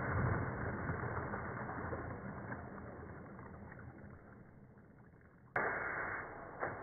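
Compressed-air blow gun blasting a fidget spinner in a jug of water: a rushing noise of air and splashing water that fades away over about five seconds. Then, about five and a half seconds in, a loud blast of air starts abruptly.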